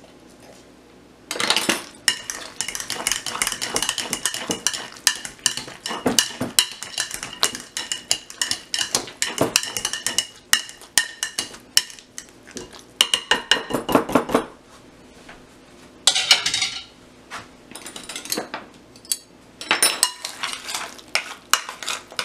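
Metal potato masher and spoon mixing lime juice into mashed avocado in a glass bowl: quick runs of clinks and scrapes against the glass, starting about a second in, with a few short pauses later.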